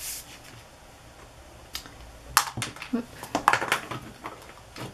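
Small clicks and light taps of craft supplies being handled on a desk: a quick cluster of sharp clicks in the middle, with one more tap near the end.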